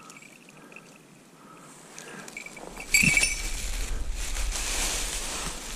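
Red-tailed hawk coming down off the glove into dry leaf litter: a sudden loud rustling and crunching of leaves starts about halfway through and carries on, with a low rumble under it.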